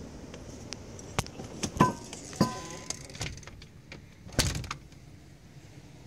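A run of sharp clicks and clunks from something being handled at a window, two with a brief metallic ring, and a cluster of louder knocks near the end.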